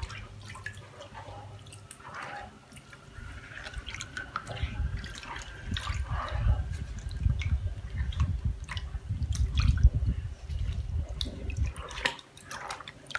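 Indigo dye liquid dripping and splashing in a large earthenware dye vat as a silk scarf is spread and lifted in it, with many small drips and a low rumble through the middle stretch.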